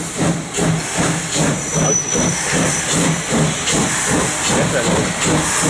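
DR class 35.10 steam locomotive 35 1097 (ex 23 1097), a two-cylinder 2-6-2, working slowly past with even exhaust chuffs between two and three a second. The chuffs sit over a constant hiss of steam escaping around its cylinders.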